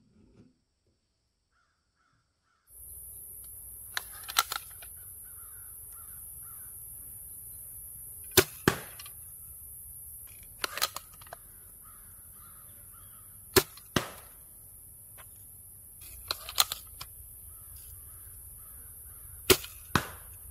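A restored Daisy BB air rifle being fired repeatedly, about six sharp pops a few seconds apart over a steady high hiss. Most pops are followed within half a second by a second sharp crack.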